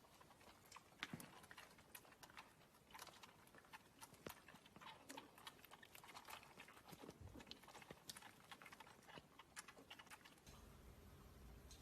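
Near silence with faint, irregular clicks and taps. A low hum comes in near the end.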